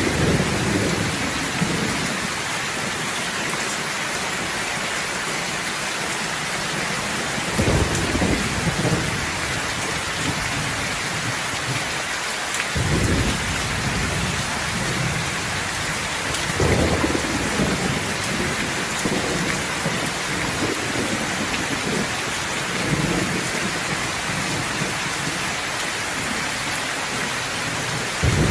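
Steady heavy rain falling, with rolling thunder rumbling low several times: at the start, then about a third of the way in, and again a few seconds apart after that.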